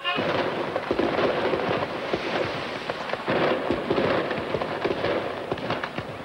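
Fireworks crackling densely, with scattered louder pops.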